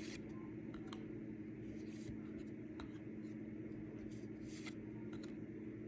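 Trading cards being handled and flipped through: faint, scattered soft swishes and clicks of card stock over a steady low hum.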